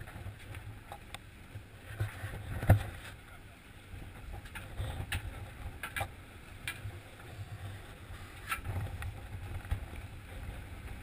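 Steady low rumble of a sportfishing boat at sea with wind buffeting the microphone, broken by a few sharp knocks and clicks, the loudest about three seconds in.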